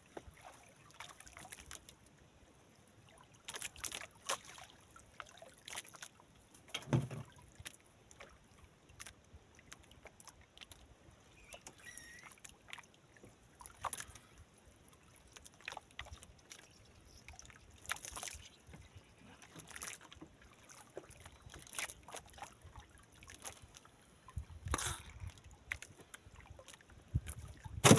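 Water sloshing against a small wooden outrigger fishing boat, with scattered light knocks and clicks from fishing line and a caught fish being handled on board, and one heavier thump about seven seconds in. A low rumble rises near the end.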